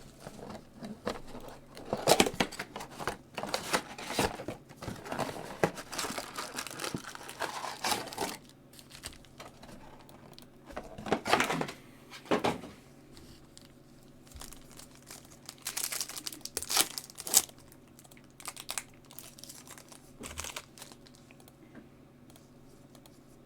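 Trading-card pack wrappers from a 2022 Bowman Draft box being torn open and crinkled by hand, in irregular bursts, busiest in the first eight seconds and then in a few short spells.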